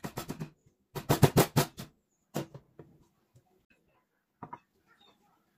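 Stone pestle pounding lemongrass stalks on a wooden chopping board to bruise them: two quick runs of rapid thuds in the first two seconds. A few lighter knocks follow.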